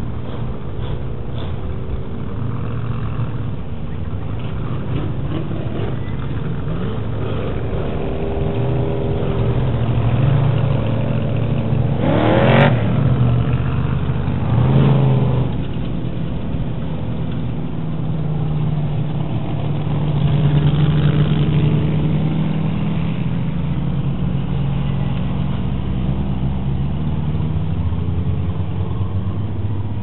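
Several off-road race trucks racing on a dirt track, their engines revving and changing pitch as they accelerate and back off. It is loudest as one truck passes close, accelerating hard about twelve seconds in, with another close pass a couple of seconds later.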